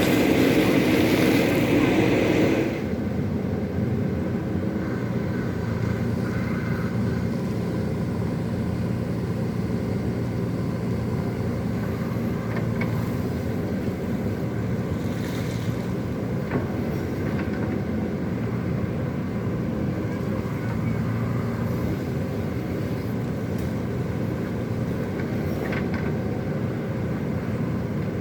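Excavator's diesel engine running steadily, louder for the first few seconds and then dropping to a lower, even level.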